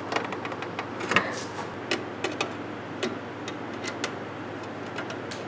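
Scattered light clicks and taps of a socket on an extension being fitted onto an exhaust flange nut and knocking against the heat shield, a few irregular strikes over a steady background hiss.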